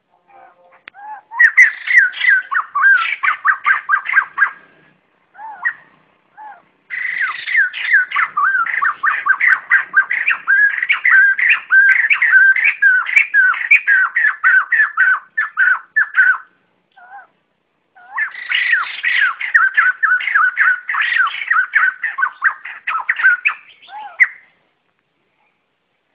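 White-crested laughingthrushes giving their loud flock call: three long bouts of rapid, chattering, laughing notes, with a few short single calls in the pauses between them.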